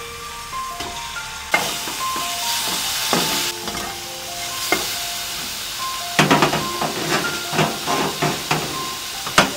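Sliced pork sizzling in a hot stainless steel frying pan, the hiss loudest from about a second and a half to three and a half seconds in. In the second half a spatula clicks and scrapes against the pan as the pork is stirred.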